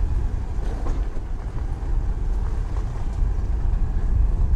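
Wind rumbling on the microphone of a moving two-wheeler, with the bike's engine and tyre noise on the gravel underneath as a steady low drone.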